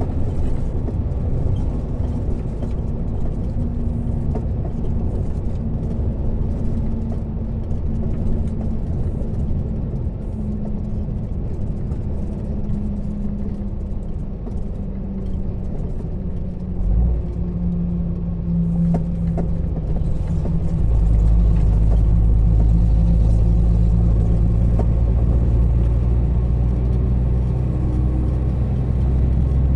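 Truck engine heard from inside the cab, running steadily with a low drone. There is a single short knock about 17 seconds in. About 21 seconds in the engine gets louder and deeper as the truck picks up speed.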